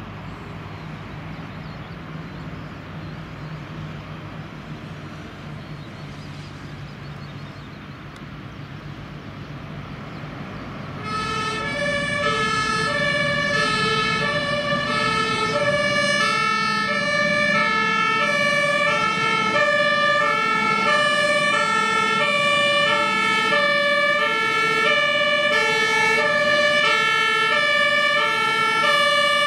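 A Rosenbauer Panther 8x8 airport crash tender, powered by two Volvo inline-six diesels, runs with a low engine rumble. About 11 seconds in, its German two-tone Martinshorn siren starts loudly and keeps alternating between a high and a low note as the truck drives off under power.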